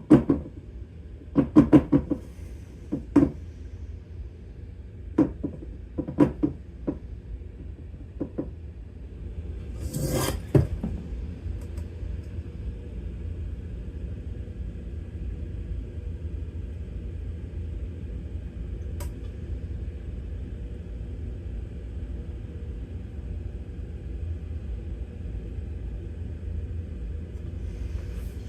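Small objects being handled on a work surface: several sharp knocks and clicks, a short rustling scrape about ten seconds in, then only a steady low hum.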